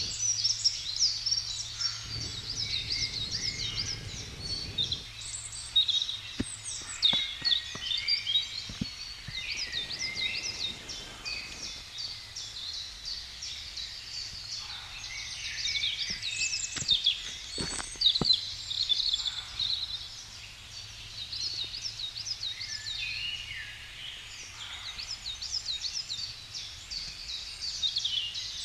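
Several songbirds singing at once, a dense, continuous chorus of high chirps and trills, with a few sharp clicks and knocks in between.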